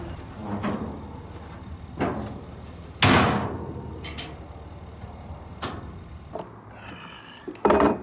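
Steel diamond-plate trailer ramps being flipped and folded onto the dovetail: a series of metal clanks and thumps, the loudest about three seconds in with a ringing tail, and another sharp clank near the end.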